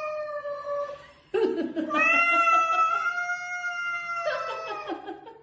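A cat yowling at another cat in long, drawn-out wails, the threat call of a standoff. One yowl fades out about a second in and a second rises and holds from about two seconds in, with rougher, lower growling sounds between them and near the end.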